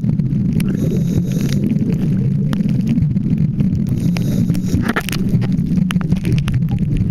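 Underwater noise recorded on a scuba dive: a steady low rumble with scattered clicks and crackles, and a short hiss about a second in.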